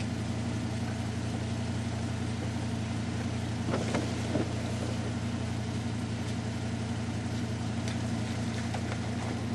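Dodge Ram 3500's 8.0-litre V10 idling steadily as it warms up, heard from inside the cab through its Flowmaster Super 44 muffler, with rain on the windshield. A few faint knocks come about four seconds in.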